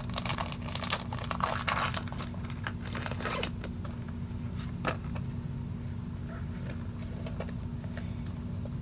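Foil wrapper of a Pokémon booster pack being torn open and crinkled, a dense crackling over the first three or four seconds, with one sharp click about five seconds in. A low steady hum runs underneath.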